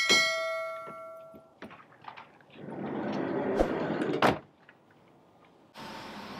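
Camper van's sliding side door rolled along its track and slammed shut about four seconds in. A click with a ringing chime opens the sound, and a steady hum comes in near the end.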